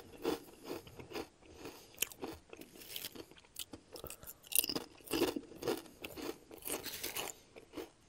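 Crunchy kettle-cooked potato chips being chewed, with irregular crisp crackles. A fresh chip is bitten about halfway through, bringing a denser run of louder crunches.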